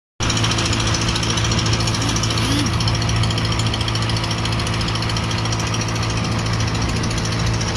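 Motor boat's engine running steadily, a low hum with a fast, rattling knock.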